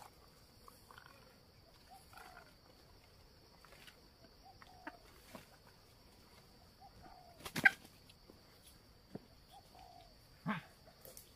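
Red junglefowl making soft, short clucks at intervals, over a steady high insect drone. A brief loud rustling knock comes about seven and a half seconds in, and a smaller one about three seconds later.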